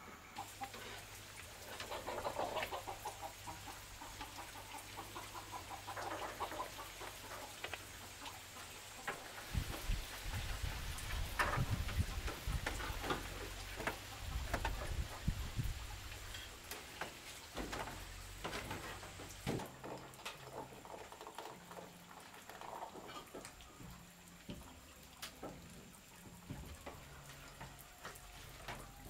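Scattered clicks, taps and rustles of hands working electrical fittings and cable: a bulb in its socket, wiring along the roof beams, a wall switch. A stretch of low rumbling knocks comes about ten to sixteen seconds in.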